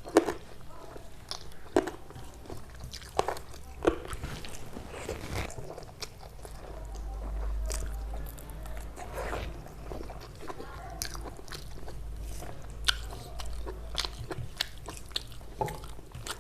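A person eating close to the microphone: crunchy bites and chewing, with sharp crunches and clicks scattered irregularly throughout.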